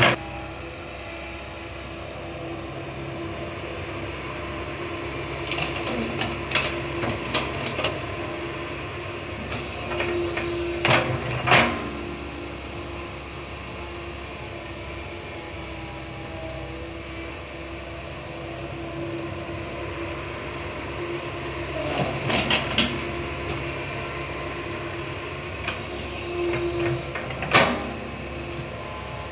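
Komatsu PC160 hydraulic excavator's diesel engine running steadily, with repeated metallic clanks and knocks from the working bucket and arm, coming in clusters; the loudest knocks come about eleven seconds in and near the end.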